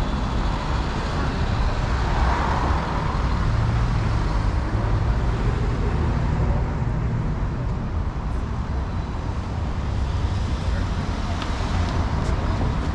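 Downtown street traffic: a steady rumble of vehicles on the road, with faint voices of passers-by.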